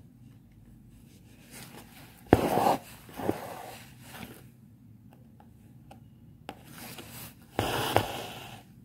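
Embroidery thread being pulled through fabric stretched in a hoop: two short, noisy pulls, about two seconds in and again near the end, each fading quickly, with a softer pull and a few small ticks between.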